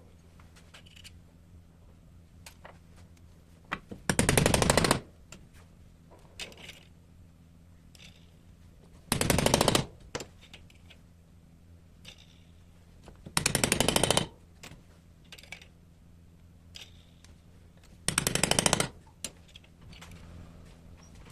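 Power tool with a fast hammering action, run in four short bursts of about a second each, a few seconds apart, with faint clicks and handling between them.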